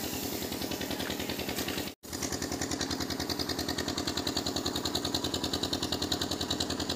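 An engine running steadily with a fast, even beat. The sound drops out for an instant about two seconds in, at a cut, then carries on the same.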